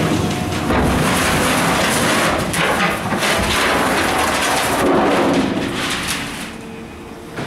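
Excavator bucket scraping along the steel floor of an open-top gondola rail car, dragging and scooping gravel aggregate with a loud, continuous scraping rattle over the excavator's engine. The scraping stops about six and a half seconds in as the loaded bucket lifts clear.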